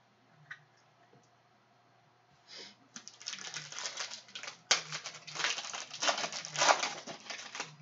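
Foil trading-card pack wrapper crinkling and crackling as it is handled and pulled open by hand. Near quiet for the first couple of seconds, then dense crackling from about three seconds in.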